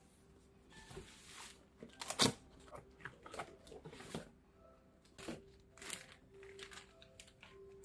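Packaging being handled during an unboxing: plastic and cardboard rustling and crinkling, with a run of sharp clicks and knocks, the loudest about two seconds in. Soft background music underneath.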